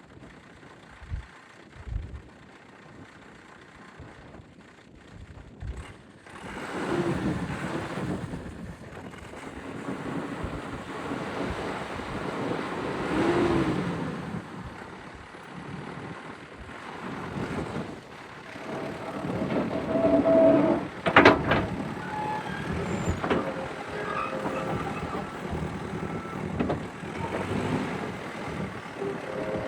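Caterpillar 420D IT backhoe loader's diesel engine revving up and down as the hydraulics are worked, after a quieter first few seconds with two short knocks. Sharp metal clanks come about 21 seconds in, and a backup alarm beeps near the end.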